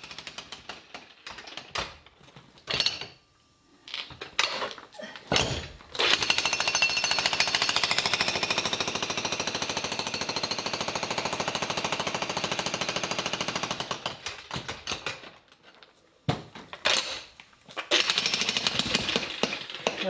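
Corded electric jackhammer breaking up a concrete floor slab: a few short bursts, then a long unbroken run of rapid hammering from about six to fourteen seconds in, and more hammering near the end. A thin high whine rides over the blows while it runs.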